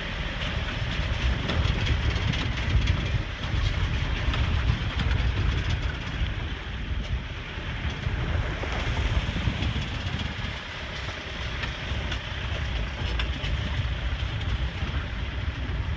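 Truck running over a rough, unpaved road, heard from on board: a steady low engine and road rumble with frequent knocks and rattles from the jolting truck.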